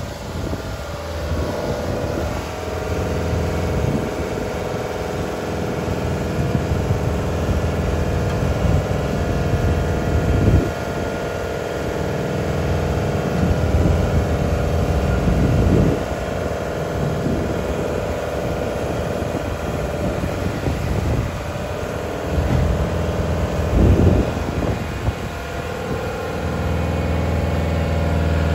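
The diesel engine of a 2004 Bitelli BB632 wheeled asphalt paver runs steadily while the machine drives slowly. Brief low rumbles come and go every few seconds.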